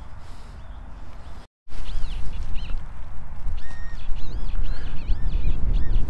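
Wind buffeting the microphone in an open field, with a run of short, high, arching bird calls over it from about two seconds in. One brief steady beep comes a little past the middle, likely the metal detector giving a signal.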